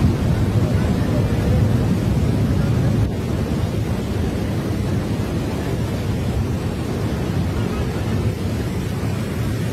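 Muddy floodwater torrent carrying debris, rushing past as a steady, deep rumbling noise that drops a little in loudness about three seconds in.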